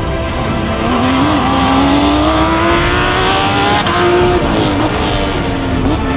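Porsche 911 rally car's flat-six engine accelerating hard, its pitch rising steadily for about three and a half seconds. About four seconds in the revs drop sharply as the driver lifts off for a bend, then waver with short blips of throttle.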